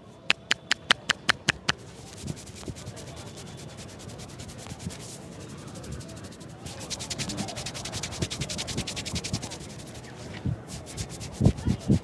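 Quick taps of a barber's pressed-together palms on a man's head, about five a second. About two seconds in they give way to fast, scratchy rubbing of fingers through the hair and over the scalp, louder in the middle, with a few thumps near the end.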